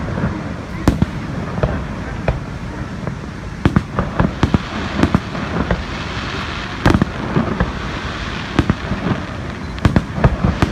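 Fireworks exploding: a rapid, irregular series of sharp bangs, some in quick clusters, over a continuous rumbling haze.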